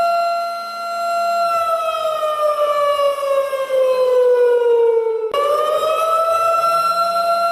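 Warning siren sounding a steady tone, then slowly sliding down in pitch for about four seconds, cutting off abruptly, and rising back to its steady pitch.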